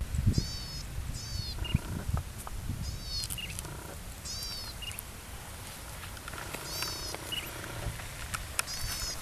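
Small single-cylinder petrol engine of a walk-behind rotary cultivator (cakar baja steel-claw tiller) running with a steady low rumble. High, repeated chirps come over it about every one to two seconds.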